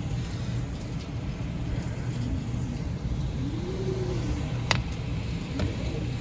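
Steady low rumble of a vehicle, with one sharp click about three-quarters of the way through.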